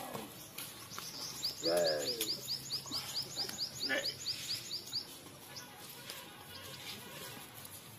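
A bird calling a rapid series of short, high, falling chirps, about six a second, starting about a second and a half in and stopping about five seconds in.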